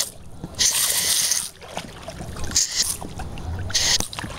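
High-pressure garden hose spray hissing in bursts as the jet is swept and interrupted: one long burst about a second long, then two shorter ones near the end, over a low steady rumble.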